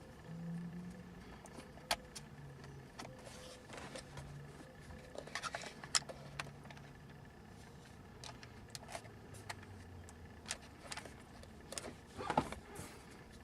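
Scattered small clicks and taps of center console hinge parts being handled and fitted together by hand, with a denser run of clicks about halfway and again near the end, over a faint low hum.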